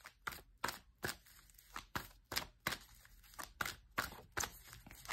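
Deck of oracle cards being handled and shuffled by hand: a run of soft, irregular taps and clicks, about three a second.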